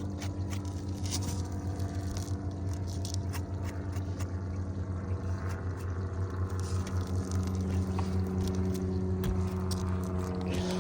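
A steady low mechanical hum, with scattered light scrapes and clicks over it.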